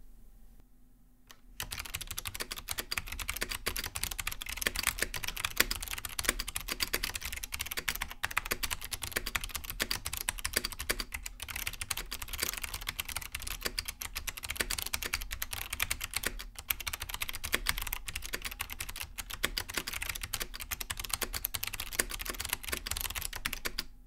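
Steady fast typing on a Laser 2269 keyboard with SMK second-generation Cherry MX-mount switches (the MX-mount version of the Monterey switch): a dense, continuous run of key clacks that starts about a second and a half in.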